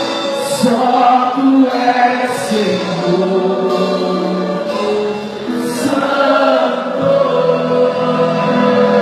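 Church worship music: a group of voices singing long held notes over a musical backing.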